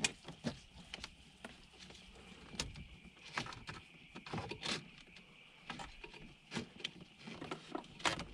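Scattered light clicks and rustles of a wiring cable being fed by hand up behind plastic dashboard trim, the cable and trim knocking now and then.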